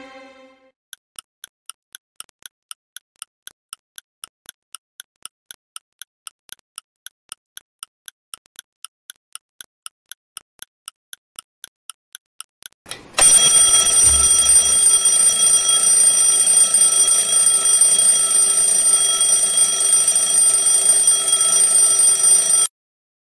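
A clock ticking about four times a second. About thirteen seconds in, an alarm clock starts ringing loudly and steadily, then cuts off suddenly when it is switched off.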